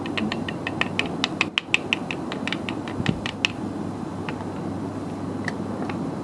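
A TV remote being handled, clicking rapidly at about six clicks a second for three and a half seconds, then a few scattered clicks, over a steady low hum.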